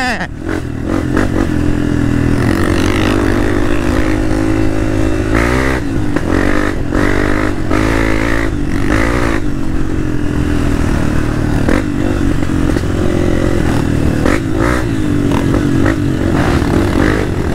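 Off-road motorcycle engine running under way, its pitch rising and falling as the throttle is opened and closed, with scattered knocks and clatter.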